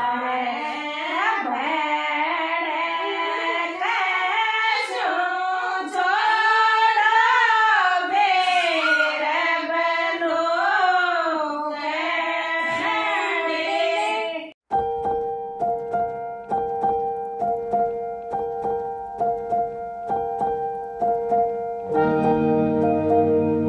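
Women singing an old Rajasthani folk song together, one flowing melody line. About fifteen seconds in it cuts off abruptly, and electronic outro music follows: steady held keyboard tones over a ticking beat, growing fuller and deeper near the end.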